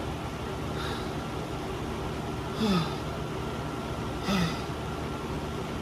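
A person letting out three short, breathy groans that fall in pitch, about a second and a half apart, from the burn of a super-hot pepper chip, over a steady background hum.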